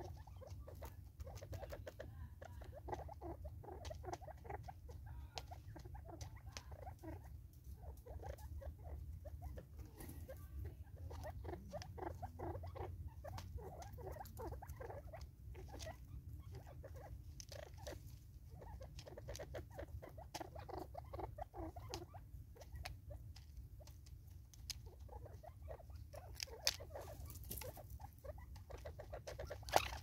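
Spurfowl pecking at a seed block and scuffling on a wooden stump: an irregular patter of small quick taps and scratches, with a couple of louder knocks near the end, over a low steady rumble.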